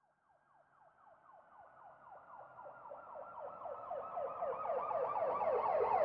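Police siren in a fast yelp, each cycle a quick falling sweep repeated several times a second. It fades in from silence and grows steadily louder.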